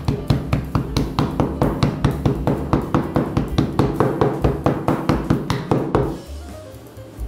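Black peppercorns wrapped in a cloth towel being crushed on a wooden board with a hand-held flat-based pounder: rapid, even knocks about five a second that stop about six seconds in. Faint background music runs underneath.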